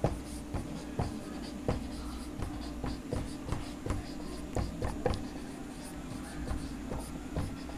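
Felt-tip marker writing on a whiteboard: a run of short, irregular taps and scratches as letters are stroked out.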